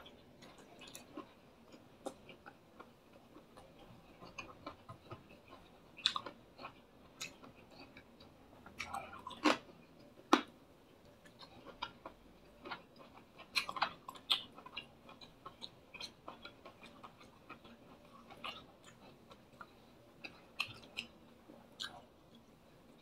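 Close-up chewing and mouth noises of a person eating fried fish, squid and rice by hand: irregular wet clicks and smacks, with two sharper, louder ones about halfway through.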